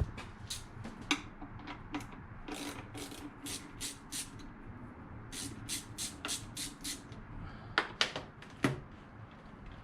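A run of sharp, irregular clicks and taps, up to about two a second, from spark plugs being handled and gapped with a gap tool. The two loudest clicks come near the end.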